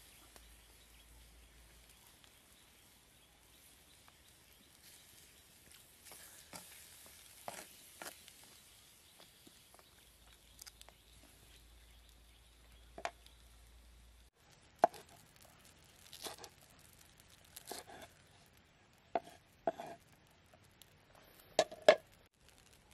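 A machete blade chopping leafy greens on a wooden cutting board: about seven irregular strokes in the second half, the loudest near the end. Before that, only the faint crackle of a wood fire under a simmering pot.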